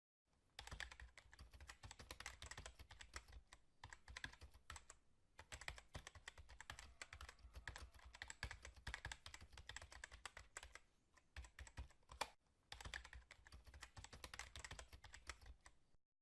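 Faint, rapid keyboard typing: dense runs of key clicks with a few short pauses and one sharper click about three-quarters of the way through.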